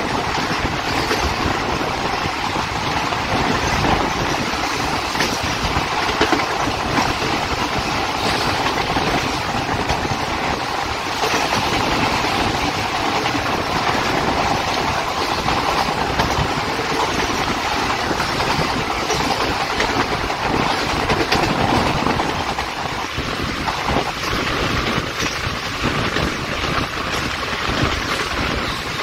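Indian Railways ICF passenger coach running along the track, heard from on board: a steady rush of wheel-on-rail rumble and wind with scattered knocks from the rails. The low rumble changes abruptly about three quarters of the way through.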